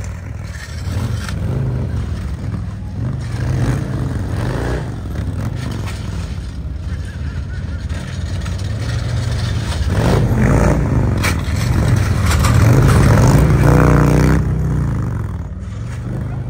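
Motorcycle engine running and revving, its pitch rising and falling. It gets louder from about ten seconds in, peaks a little later, then eases off near the end.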